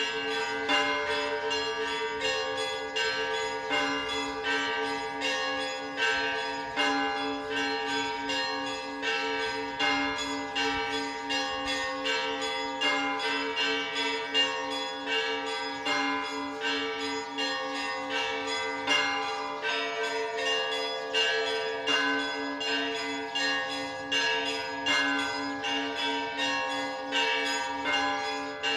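Orthodox church bell ringing (zvon): many small bells are struck in quick succession, several strikes a second, over the steady, pulsing hum of larger bells.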